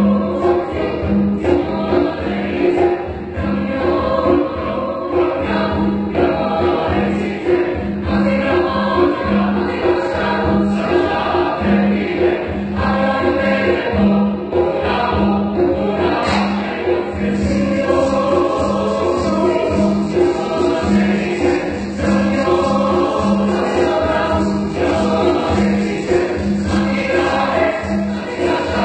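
Chamber choir singing in full voice, with a steady, regularly pulsing low part under the upper voices.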